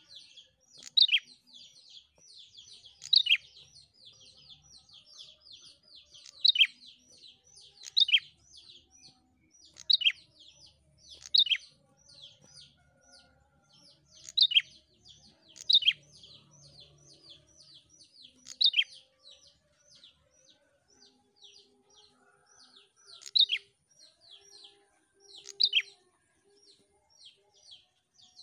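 Prenjak songbird calling without pause: a quick run of short, high chirps, several a second, broken every one to three seconds by a louder, sharper note that sweeps downward.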